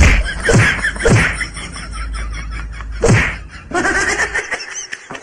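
A few loud smacks and thuds, one at the start, one about half a second in, one about a second in and one about three seconds in, with laughing voices in between.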